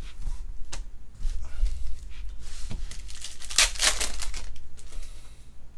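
Foil wrapper of a 2020 Panini Prizm Baseball trading-card pack torn open by hand, a crinkly tearing about three to four seconds in, after a few light clicks.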